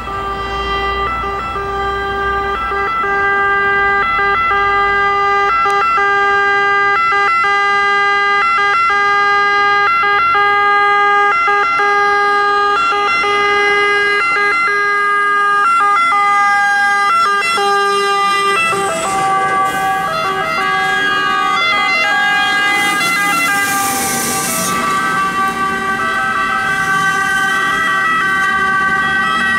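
Two-tone sirens of two fire trucks, an Iveco Stralis engine and an Iveco EuroFire ladder truck, sounding continuously as they pass, with truck engines running beneath. The pitch pattern shifts a little past halfway as the trucks go by, and a short burst of hissing comes about two-thirds of the way in.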